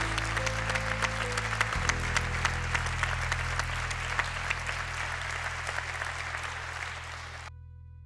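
Audience applauding over background music with sustained notes. The applause fades and cuts off near the end, leaving the music.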